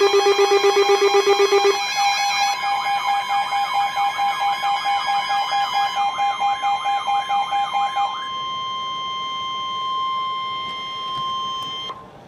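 Electronic emergency alert tones: a fast-pulsing low tone for about two seconds, then a warbling tone that sweeps up and down about three times a second for about six seconds, then a steady high-pitched tone for about four seconds that cuts off suddenly near the end.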